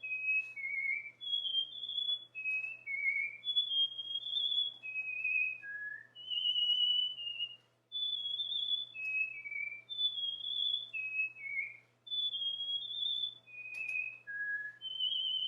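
Cockatiel whistling its song: clear whistled notes, a high note followed by lower stepping notes, in a phrase repeated about every four seconds. A faint steady hum lies underneath.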